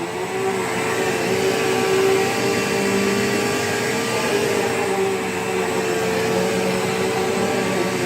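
Bissell PowerGlide Platinum (3545-2) bagged upright vacuum running steadily, its motor giving a constant whine over a rush of airflow; it gets a little louder about half a second in.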